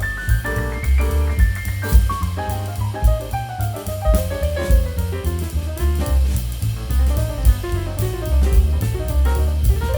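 Background music: an upbeat jazz-style track with a steady drum-kit beat, bass and running melodic notes.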